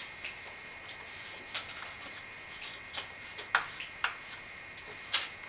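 Chalk and a ruler tapping and knocking against a chalkboard as points are marked, about six short, sharp clicks spread over a few seconds.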